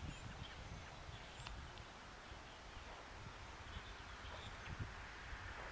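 Faint outdoor ambience at the trackside: a steady low rumble with a few faint, scattered high chirps.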